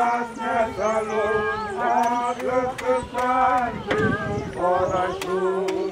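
A group of people singing together, men's and women's voices, with sharp scrapes and clicks now and then from shovels working the grave soil.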